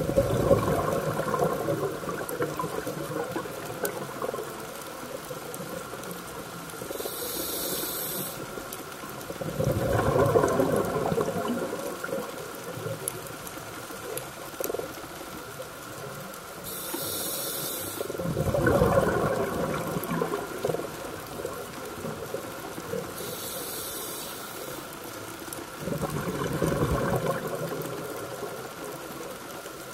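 Scuba regulator breathing underwater, four breaths: each a short hiss of air drawn through the regulator, then a louder gurgle of exhaled bubbles, repeating about every eight seconds.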